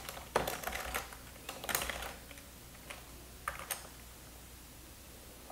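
Typing on a computer keyboard: quick runs of keystrokes in the first two seconds, then a couple of single key presses about three and a half seconds in.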